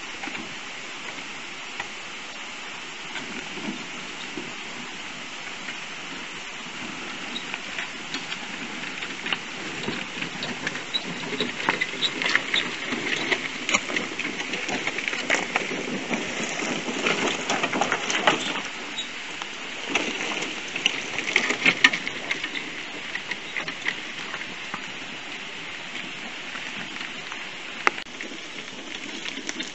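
Electric Tramper off-road mobility scooter rolling over a rough stony path, its tyres crackling and crunching on the loose stones. The crackling grows louder as it comes close, is loudest for several seconds in the middle as it passes, then fades as it moves away, over a steady hiss.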